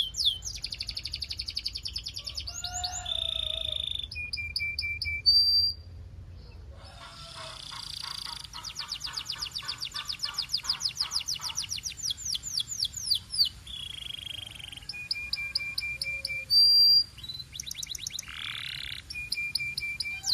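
Canary singing, a long run of fast trills and rolls whose phrases change every second or two, with a short pause about six seconds in.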